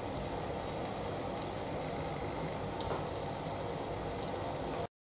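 Egg-soaked bread slices frying in hot oil in a frying pan: a steady, gentle sizzle with a couple of faint clicks. The sound drops out for a moment near the end.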